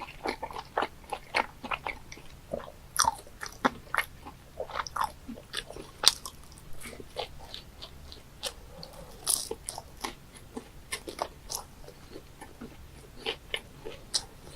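A person chewing and biting into pieces of live octopus: sharp clicks and crunches at an irregular pace, several a second.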